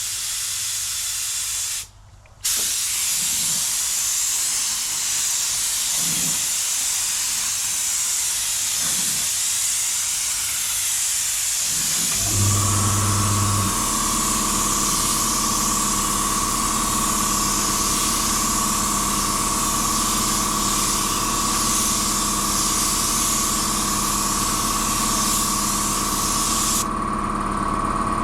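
Paint spray gun hissing steadily as a second coat of clear coat goes on, with a short break about two seconds in. About twelve seconds in a machine starts up with a steady hum and a high whine, and it keeps running after the spraying stops near the end.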